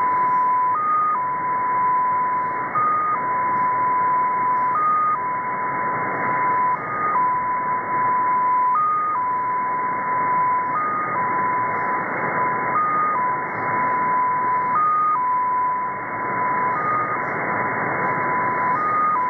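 Russian XPA2 number station received on shortwave in upper sideband: a steady tone that jumps briefly to a slightly higher pitch every two seconds, over a bed of shortwave static hiss. This is the opening of the transmission, before the multi-tone MFSK message begins.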